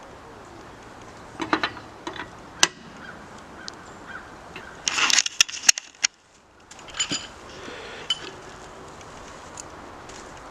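Scattered metal clinks and clanks of tyre-changing tools being handled, with a denser burst of clatter and rustling about five seconds in.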